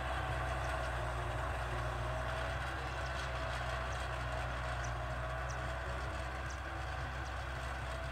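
Tractor's diesel engine running steadily under load as it pulls a plough through field soil, a steady drone that fades slightly.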